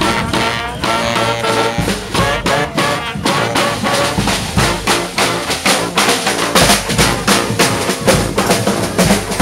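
Street marching band playing: brass horns over a driving drum beat with bass drum and snare strokes.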